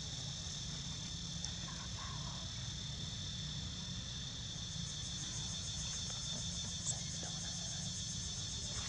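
Steady, high-pitched chorus of insects, several shrill tones held without a break, with one brief click near the end.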